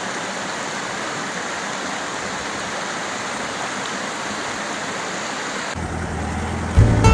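Waterfall rushing steadily. Near the end the water sound cuts off and music starts.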